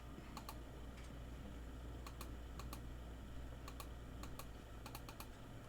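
Faint typing on a computer keyboard: scattered light key clicks at an irregular pace.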